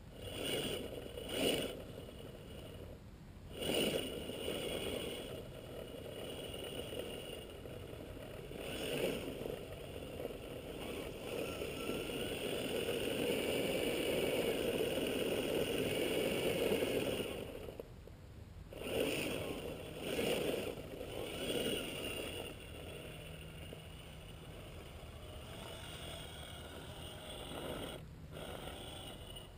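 Gmade Sawback RC scale crawler's brushed electric motor and geared drivetrain whining in spurts as it crawls up rock, with tyre scrapes. The longest, loudest pull comes about halfway through, and the motor cuts out briefly a few times.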